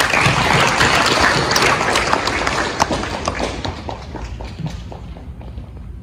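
Audience applauding, loud at first, then thinning to scattered claps and dying away over the last few seconds.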